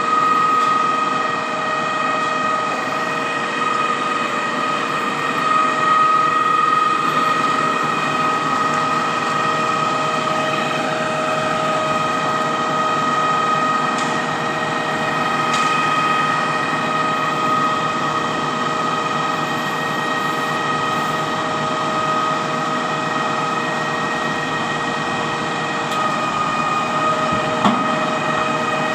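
Truck-mounted concrete pump running steadily with a high whine as its boom's last section folds closed.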